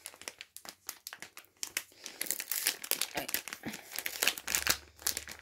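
Thin plastic foil pouch crinkling as it is handled and opened: a dense, irregular run of crackles that grows busier about two seconds in.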